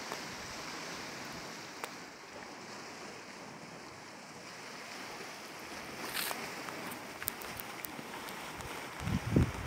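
Sea waves breaking and washing on the rocks below the cliff, a steady surf hiss, with a few low thumps of wind on the microphone near the end.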